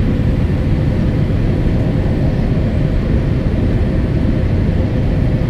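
Steady cabin noise of a Boeing 787-8 airliner descending to land, heard inside the cabin at a window seat: a low rumble of airflow and GEnx-1B engine drone, with a faint steady hum above it.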